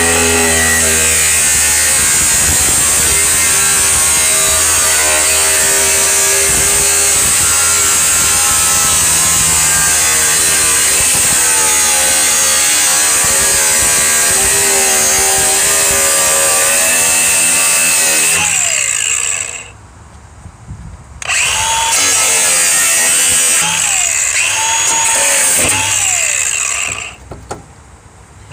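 Angle grinder with a cut-off wheel cutting through the sheet-metal floor pan above the fuel tank, its motor whine shifting in pitch as the wheel bites and is pressed into the cut. It stops about two-thirds of the way through, starts again after a second or two, then runs a few more seconds and stops near the end.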